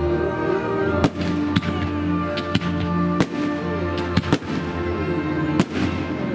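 Fireworks exploding in the sky: about seven sharp bangs at irregular intervals, two of them close together a little past four seconds in. Music with held notes plays continuously underneath.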